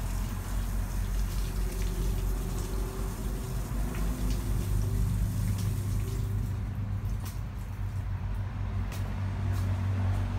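A steady low rumble, with a few faint clicks in the second half.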